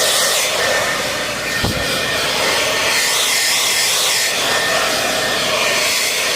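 Handheld hair dryer running steadily, a rushing blow of air with a faint high whine from its motor. A brief low knock comes about one and a half seconds in.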